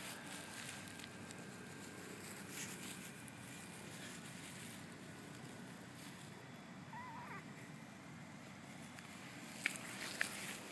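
Quiet outdoor ambience on a lawn: a faint steady hiss of background noise, a short warbling chirp about seven seconds in, and a couple of sharp ticks near the end.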